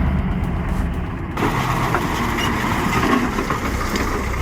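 Heavy vehicle engine running. About a second and a half in there is an abrupt cut to another engine, a truck's, working as it hunts for traction in clay.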